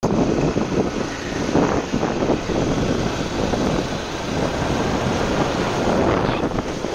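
Wind rushing over the microphone, rising and falling in gusts, over the steady road noise of a vehicle in motion.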